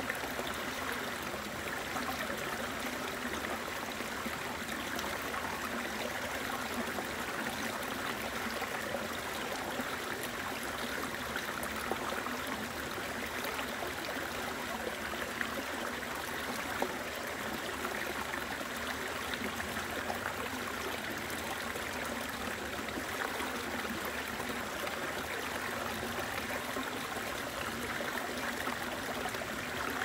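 Shallow rocky stream flowing steadily, water splashing down a small cascade over boulders and running over a stony bed: an even, unbroken babble.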